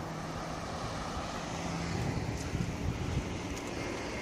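Wind rumbling on the microphone, with a faint steady low hum underneath.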